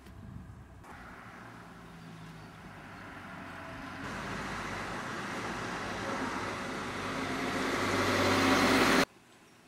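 Road vehicle noise with tyre rush and a low engine hum, growing steadily louder as the vehicle approaches, then cut off abruptly about nine seconds in.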